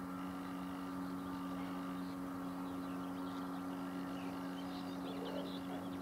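Small boat motor running at a steady pitch, an even hum while the boat travels.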